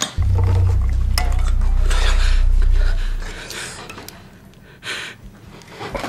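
A deep, steady low hum for about three seconds that then fades away, with small metallic clinks and rustles of thin wire being pulled and twisted by hand.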